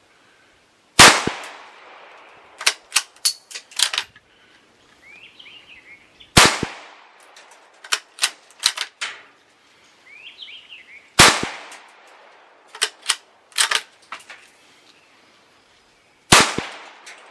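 Four shots from a Marlin bolt-action .17 HMR rifle, about five seconds apart. After each of the first three shots comes a quick run of metallic clicks as the bolt is worked to eject the case and chamber the next round. Small birds chirp faintly between shots.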